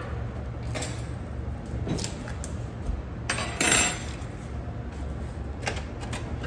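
Eggs being cracked into a dish: a few light taps and clicks, with a short crackling burst about three and a half seconds in as a shell is broken open. A steady low hum runs underneath.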